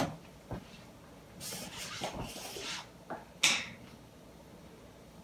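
Kitchen handling noises as containers are fetched and set out: a few clicks, a rustling scrape around two seconds in, and a sharp knock, the loudest sound, about three and a half seconds in.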